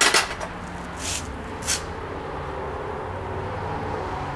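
Clink of a graphite mold and its metal clamp being fitted together: one sharp knock at the start, then two lighter clicks about a second in. A steady low hum runs underneath.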